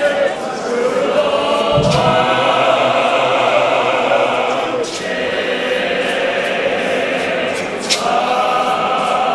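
Church congregation singing a Zulu hymn together as a choir, men's and women's voices mixed. Three sharp knocks cut through the singing, about three seconds apart.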